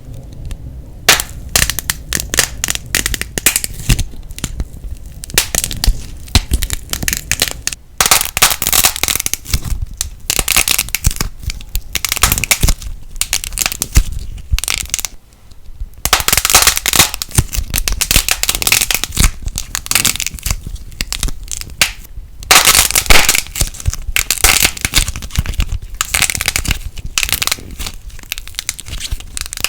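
Light plasticine crackling and popping as it is worked by hand: dense runs of sharp crackles lasting a few seconds each, with a brief lull about halfway through.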